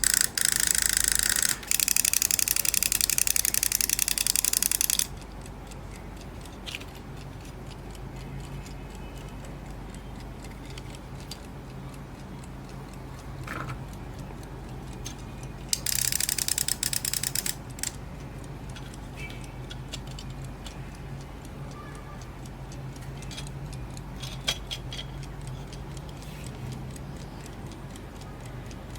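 Golden Time mechanical alarm clock, made in Romania, ticking while its alarm bell rings loudly in a fast rattle. The bell rings for about five seconds at the start with a brief break, cuts off suddenly as it is stopped with the stopper button, then rings again for under two seconds about halfway through.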